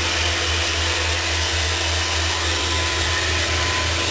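Handheld electric hair dryer running steadily: a constant rush of air over a low motor hum.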